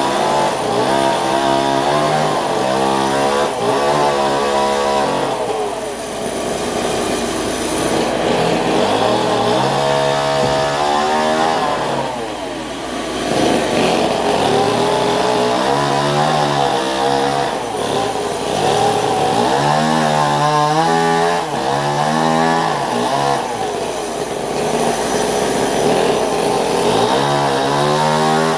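Engine-driven saw cutting timber, its engine pitch repeatedly sagging and rising again as the load of the cut changes.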